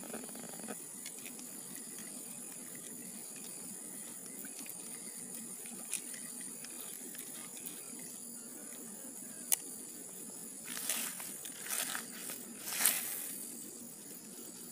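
Steady high-pitched outdoor hiss with a couple of single sharp clicks, then a few seconds of louder rustling and handling noise about eleven seconds in.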